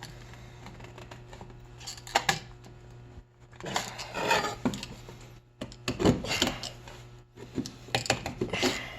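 Offset tin snips cutting through a small piece of stainless steel sheet, in short bouts of snipping about every two seconds.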